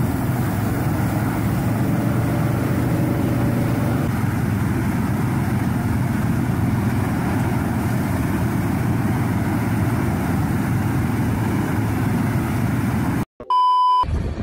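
Tractor engine running steadily, together with the constant rush of a boom of propane flame-weeding burners. Near the end the sound cuts off abruptly and a short electronic beep follows.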